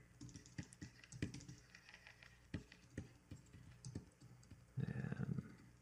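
Scattered, irregular clicks of computer keyboard keys, as used for shortcuts while digitally painting. A brief low hum of a voice about five seconds in.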